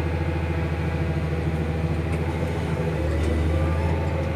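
Massey Ferguson 7725 Dyna-6 tractor engine running steadily under way, heard from inside the cab as a low drone. The drone grows a little louder about three seconds in.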